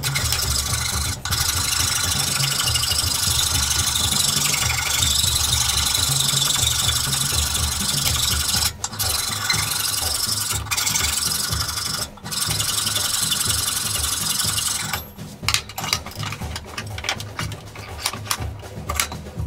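Continuous rubbing and scraping on wood as the hatchet's wooden handle is shaped to fit the head. It breaks off briefly about nine and twelve seconds in and turns choppy near the end.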